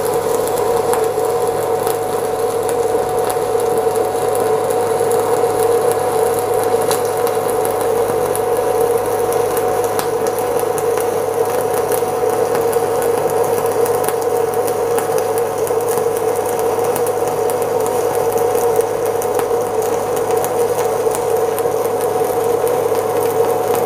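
Stick-welding arc from a 3/32-inch E7018 low-hydrogen electrode at 90 amps, burning steadily as a bead is laid: an even crackling hiss over a constant hum, with a few sharper ticks.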